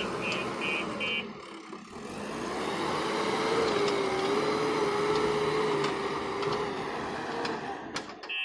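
Backhoe loader engine running steadily. A rapid high-pitched reversing alarm beeps about three to four times a second and stops about a second in.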